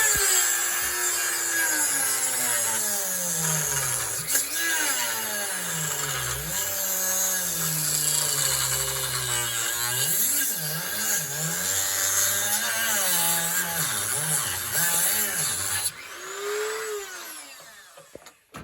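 Dremel rotary tool cutting into a pine block, its motor pitch dropping and climbing over and over as the bit bogs under load and frees up again. It stops about sixteen seconds in, followed by a short faint whine.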